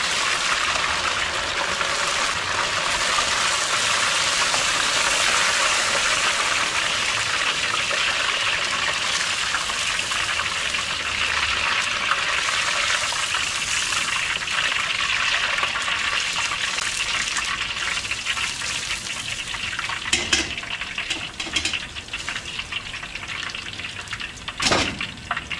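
Battered fish pieces deep-frying in a wok of hot oil on their second fry to crisp the batter, a dense steady sizzle that thins out near the end as the pieces are lifted out. A few short metal clinks come near the end.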